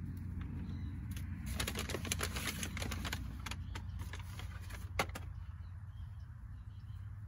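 Thin plastic carrier bag rustling and crinkling as a hand rummages in it and pulls out a bunch of bananas, a dense crackle for about two seconds, followed by a single sharp click about five seconds in.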